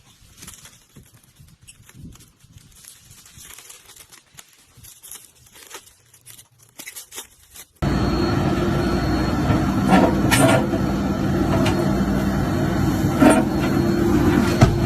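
Faint scattered clicks and crackles, then an abrupt cut about eight seconds in to a loud, steady machine running with a low hum and a couple of sharp clanks.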